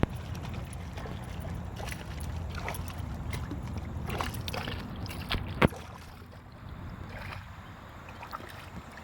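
Kayak on the water: low wind rumble on the microphone and light water sounds, with scattered knocks and clicks. One sharp knock comes about five and a half seconds in.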